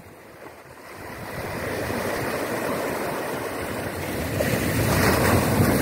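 Sea surf washing and breaking over shore rocks, building up after the first second and swelling again near the end, with wind noise on the microphone.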